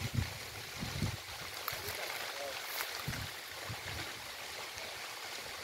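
Grass and brush fire burning, a steady rushing hiss with scattered small crackles. A few low thumps come near the start and again about three seconds in.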